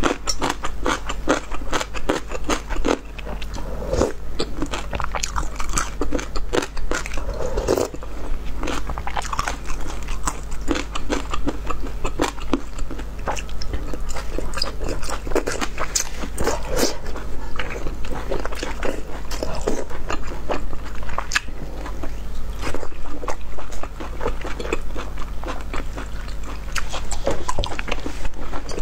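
Close-miked eating: a person biting and chewing meat and rice noodles from a noodle soup, with dense irregular wet clicks and small crunches, over a steady low hum.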